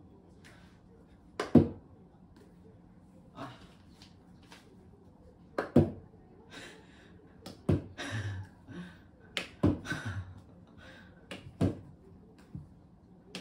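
A series of sharp knocks and taps, irregularly a second or two apart, from a small ball striking a wall and wooden floor while a munchkin cat leaps at it.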